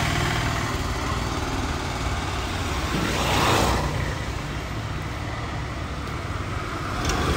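SUV engine running as the car pulls away, with a steady low hum and a louder whoosh about three and a half seconds in.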